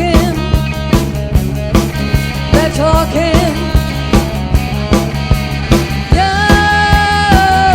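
Party cover band playing a rock song, with a steady drum beat, bass, and a melody line bending in pitch. About six seconds in, a long held note comes in and runs on.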